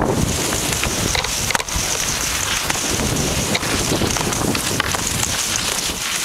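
Wind rumbling on the microphone of a camera carried by a moving skier, over a steady hiss of skis sliding on snow, with a few sharp clicks.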